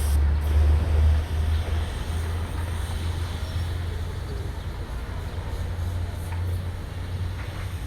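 Caterpillar excavator's diesel engine running steadily with a deep, low sound, a little louder in the first second or so.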